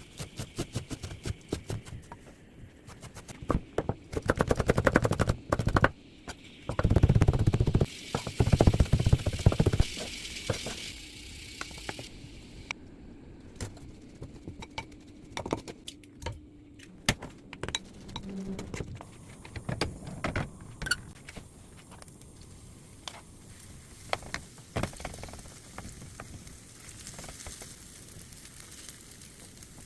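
Kitchen food-prep sounds: utensils clicking and knocking against a bowl or board, with two loud stretches of rapid strokes, like quick chopping or stirring, in the first third, then scattered lighter clinks.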